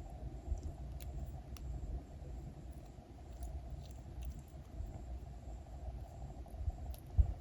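Soft squishy toys being squeezed and handled close to the microphone: muffled low rubbing and squishing with faint clicks, and a louder thump near the end.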